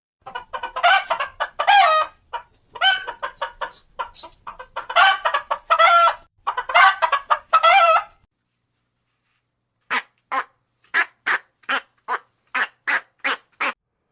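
Chickens clucking and cackling for about eight seconds. After a short pause comes a run of about eleven short, evenly spaced calls, roughly two or three a second.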